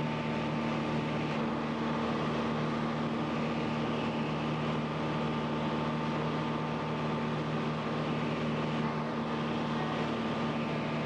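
Light aircraft's engine and propeller heard from inside the cabin in cruising flight: a steady, even drone with a fainter higher whine over it.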